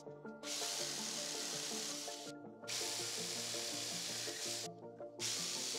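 Skil jigsaw cutting plywood, a steady hissing rasp that breaks off briefly twice, about two and a half seconds in and again near the end.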